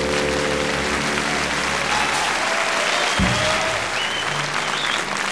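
The last held chord of a live jazz recording dies away about a second in, and audience applause takes over.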